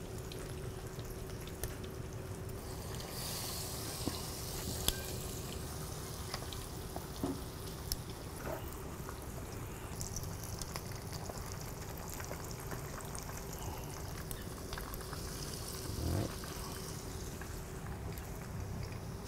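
Battered chicken wings deep-frying in hot fat in a pan: a steady bubbling sizzle with scattered crackles and a few sharp clicks.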